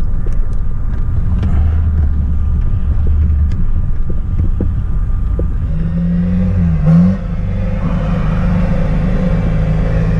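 4x4 off-road vehicle's engine labouring through deep mud, heard from inside the cab, with a short rev about seven seconds in. Clods of mud ticking against the windows in the first few seconds.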